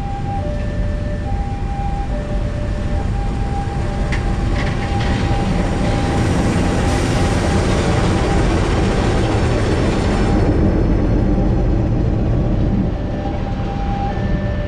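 CC206 diesel-electric locomotive and its passenger coaches rolling slowly past at track level while shunting, wheels clicking over the rail joints around four to five seconds in. The locomotive's engine noise swells as it passes about eight seconds in and eases off as it draws away near the end.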